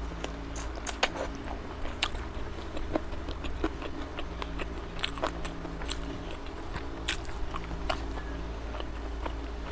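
A person biting and chewing a chicken leg piece in gravy: a string of sharp mouth clicks and smacks, the loudest about a second in, over a steady low hum.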